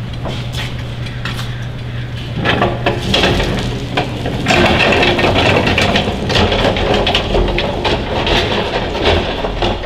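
Wheeled plastic bin rattling and knocking as it is rolled over brick paving, starting about two and a half seconds in. A low steady hum is heard before it.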